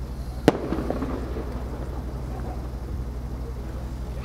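An aerial firework shell bursting with one sharp boom about half a second in, its echo rolling away over the next second or so, over a steady low hum.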